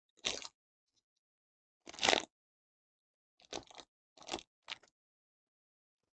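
Foil wrapper of a trading card pack being torn open and crinkled: a handful of short crackling rustles, the loudest about two seconds in.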